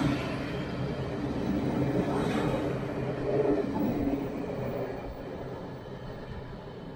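Diesel train passing, its engine running with a steady low hum over wheel and rail noise, fading away over the last few seconds.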